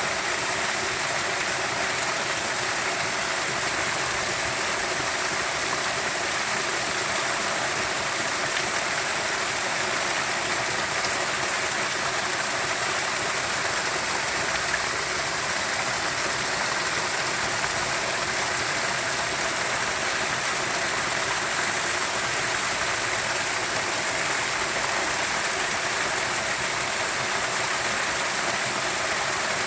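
Running water, flowing steadily without a break, with a bright hiss.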